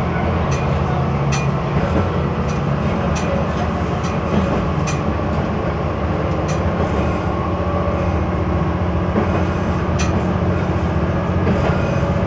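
Single-car diesel railcar running along single track, heard from inside the cab: a steady low engine drone, with sharp clicks of the wheels over the rail joints at irregular intervals.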